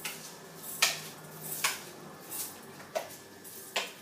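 Wooden spoon scraping washed, drained rice out of a bowl into another bowl. It knocks and scrapes against the bowl about five times, in short sharp strokes roughly every second.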